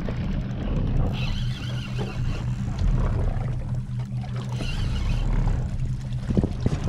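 Outboard motor idling steadily, with a higher whirring in two short spells, about a second in and again near the five-second mark, from a spinning reel being cranked.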